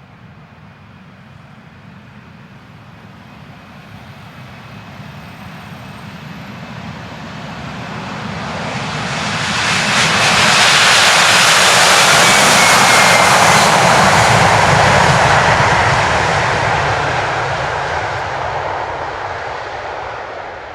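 Twin jet engines of a FedEx Boeing 767 freighter at takeoff power as it departs past. The noise swells to a peak about halfway through, with a falling whine as it passes, then fades.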